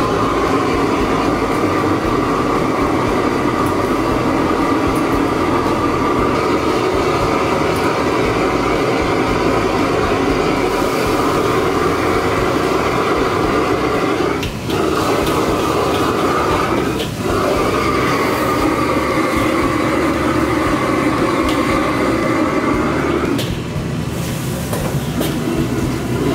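Stir-frying over a high-pressure gas wok burner: a loud, steady roar of the flame with the wok sizzling. It starts suddenly, dips briefly twice about 15 and 17 seconds in, and stops about three seconds before the end.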